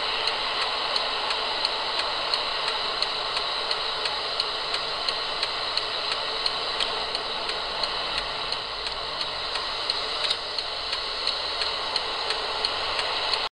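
Steady engine and road noise inside a car, with a regular light ticking about three times a second. The sound cuts off suddenly at the end.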